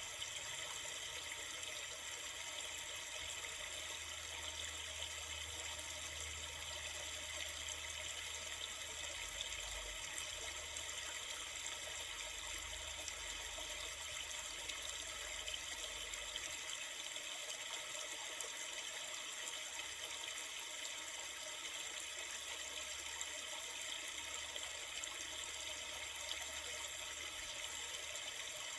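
Steady flowing river water, an even rushing sound with no breaks. A faint low rumble underneath stops a little past halfway.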